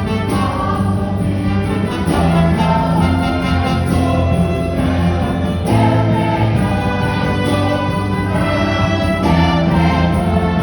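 Christian music: a choir singing over instrumental accompaniment.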